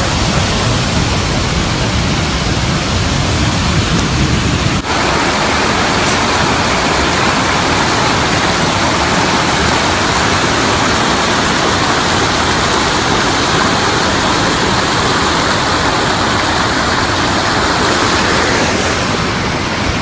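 Snowmelt-fed mountain stream rushing over rocks in a cascade: a loud, steady roar of whitewater. About five seconds in it changes abruptly, losing some low rumble and turning hissier.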